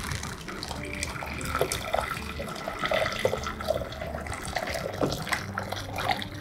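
Strained chicken-stock broth poured from a glass bowl into a stainless steel saucepan: a continuous splashing stream of liquid hitting the metal pan.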